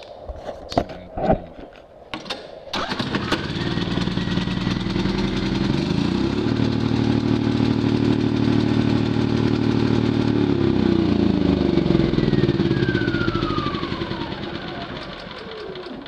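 Champion 3100 inverter generator's single-cylinder engine starting with its control unit unplugged, a test of whether the control module is at fault. After a few knocks it catches about three seconds in, speeds up, then runs steadily. Near the end it slows and winds down with a falling whine.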